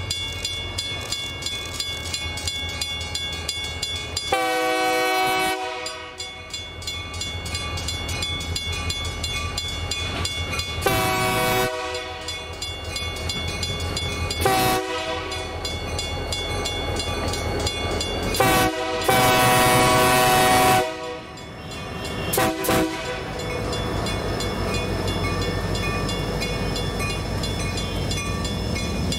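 A train's air horn sounding a series of blasts over the steady rumble of the train: a long blast about four seconds in, shorter blasts later, another long blast about two-thirds of the way through, and two quick toots just after it.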